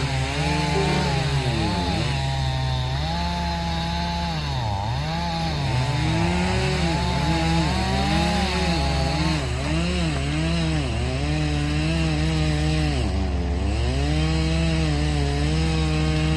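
Chainsaw running under load in wood, its engine pitch repeatedly sagging and climbing back as it cuts, over a steady low hum.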